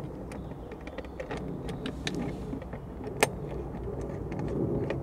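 Faint scattered clicks and light metal taps as nuts are threaded by hand onto the bolts of a roof-rack mounting bracket, with one sharper click about three seconds in, over a low steady background rumble.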